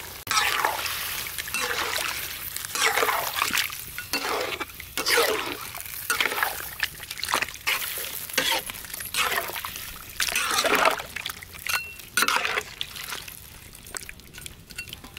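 A metal spoon stirring and turning chunks of pig head in a steel wok of simmering broth: repeated wet sloshes and splashes of liquid, one every second or two.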